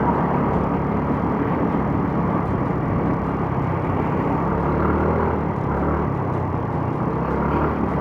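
TVS Ntorq 125 scooter cruising steadily at about 40 km/h: the single-cylinder engine runs at an even drone, mixed with wind and road noise.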